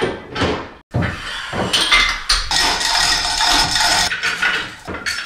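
Metal clanking and clinking as an LS engine block and its fittings are handled and set in a cylinder honing machine: a few sharp knocks, then about three seconds of continuous metallic clatter and scraping.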